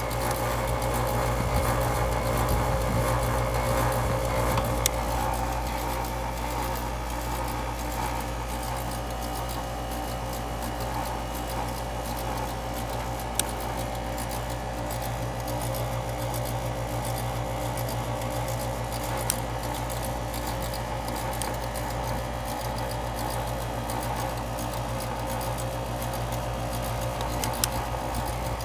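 Outdoor condensing unit of a central air conditioner running with a steady hum from the compressor and condenser fan, back in operation on a newly replaced run capacitor. A few sharp clicks stand out over the hum.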